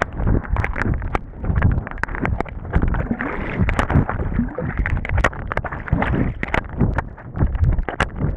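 Water sloshing and gurgling around a camera held underwater by a swimmer, muffled and churning, with many irregular sharp clicks throughout.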